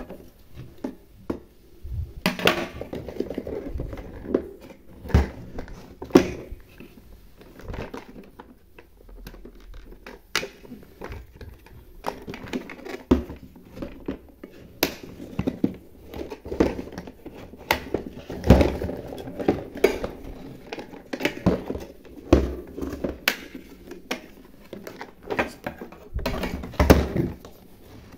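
Hard plastic parts of a toy mini kitchen being handled and fitted together: irregular clicks, knocks and taps of plastic on plastic.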